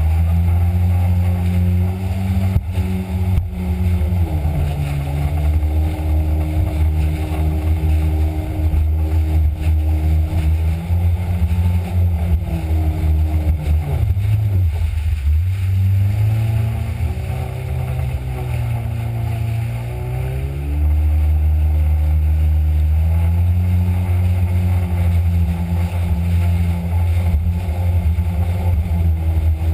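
Jet ski engine running hard at speed, with water rushing past the hull. The engine pitch dips briefly about four seconds in, then falls away around fourteen seconds and climbs back up to full speed by about twenty-one seconds.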